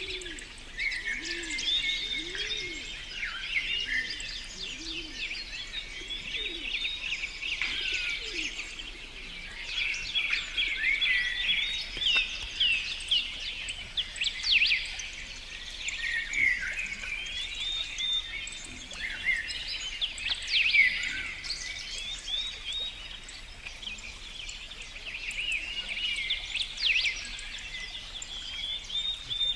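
Several songbirds singing and chirping over one another in a busy, continuous chorus, with a few low, repeated arching notes in the first few seconds.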